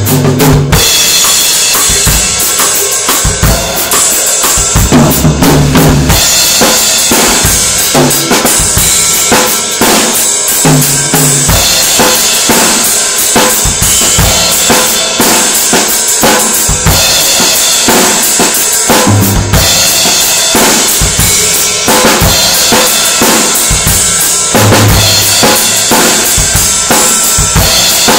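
Acoustic drum kit played continuously: a busy beat of bass drum and snare strikes under constantly ringing cymbals, with low tom hits coming in every few seconds.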